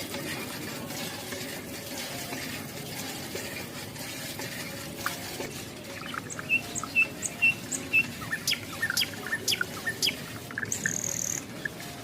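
Bird chirping: a quick run of short high chirps about halfway through, then scattered clicks and a brief high whistle near the end, over a steady hiss.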